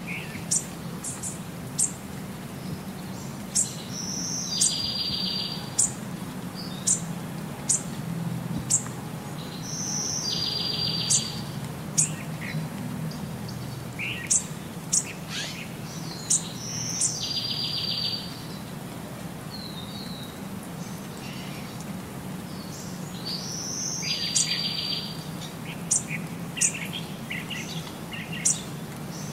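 Birds chirping: many short, high chirps, with a buzzy trill repeating about every six seconds, over a low steady hum.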